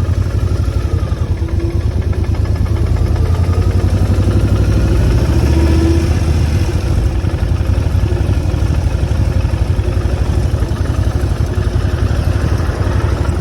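A 2,000 cc motorcycle engine idling steadily, with an even low pulsing rumble.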